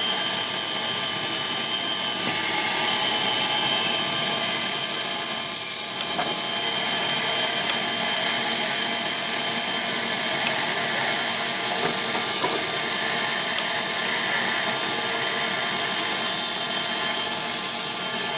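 Bandsaw running steadily with its blade cutting through a workpiece: a constant whine over a strong hiss.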